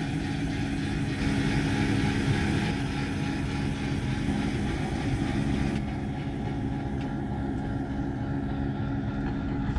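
Powered engine-hatch lift motor running steadily as the cockpit hatch lowers over the engine compartment: a constant mechanical hum.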